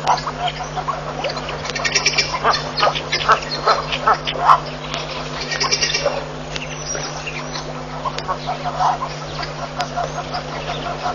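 Birds giving a series of short, harsh duck-like calls, bunched together in the first half and sparser later, over a steady low hum.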